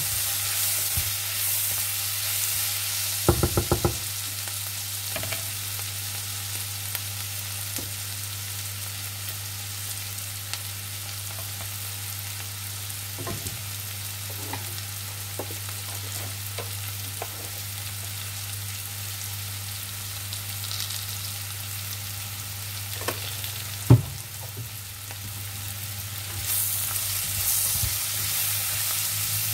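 Sliced cabbage, capsicum and carrot sizzling as they stir-fry in a non-stick wok, with a wooden spatula stirring and scraping. The stirring is louder at the start and again near the end. A quick run of about five taps comes about three seconds in and one sharp knock late on, over a steady low hum.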